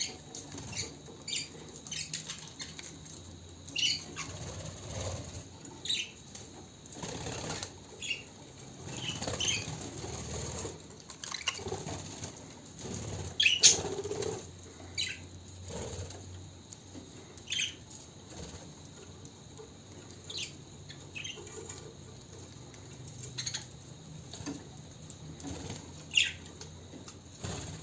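Budgies making short, scattered chirps, mixed with bursts of wing flapping and rustling.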